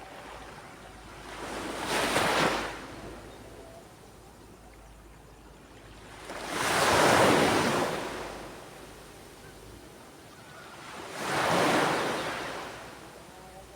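Surf on a beach: three waves break in turn, each swelling to a crash and then washing out, about five seconds apart, over a steady low wash of the sea.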